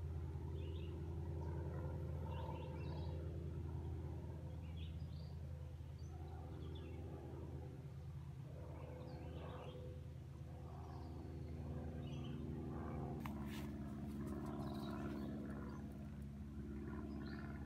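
Outdoor ambience: a steady low hum with scattered faint bird chirps over it. The hum changes pitch about three-quarters of the way through.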